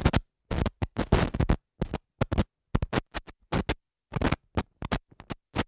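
Choppy digital-glitch sound effect: about twenty short, harsh bursts of static in an uneven stutter, each cutting off abruptly into dead silence.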